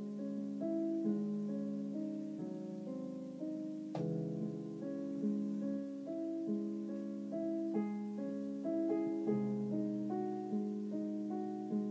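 Digital piano played by hand: a slow piece of held chords and melody notes, with a short sharp click about four seconds in.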